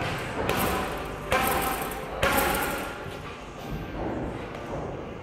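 Gloved punches landing on a round hanging heavy bag: a run of sharp thuds roughly a second apart, the last one softer.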